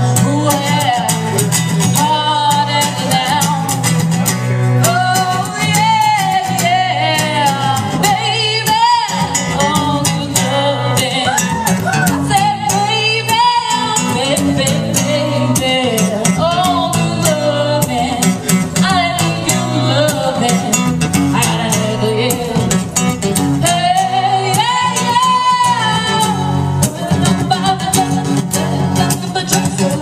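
A song: a voice singing over instrumental accompaniment with a steady low bass line.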